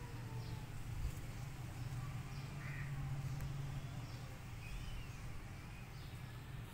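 Birds calling now and then: short scattered chirps and calls over a steady low rumble.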